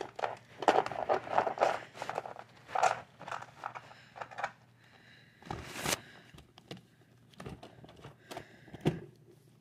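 Handling noise from plastic toy animal figures and the camera being moved about on a blanket: scattered rustling, scraping and light knocks. A sharper knock comes about six seconds in and another near the end.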